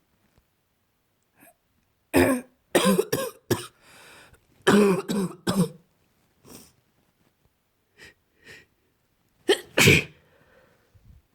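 A person with a cold coughing and sneezing in a series of short, sudden bursts, some in quick clusters, with the loudest burst about ten seconds in.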